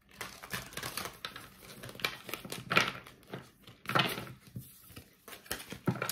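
Tarot cards being shuffled by hand: irregular rustling and flicking of cards, some strokes louder than others.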